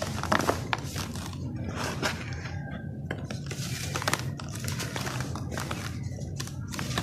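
Dry molded sand blocks crushed and crumbled by hand, crunching and crackling, with loose sand pouring in a gritty hiss into a plastic basin. The sharpest crackles come about half a second in, about two seconds in and about four seconds in.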